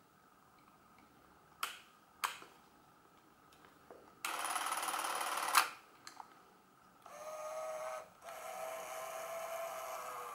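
Porst ZR 422 Super 8 camera's battery-driven motor mechanism operated in short spells. Two clicks of its controls come first, then a run of about a second and a half that ends in a click, then two longer runs with a steady hum, the second cut off near the end.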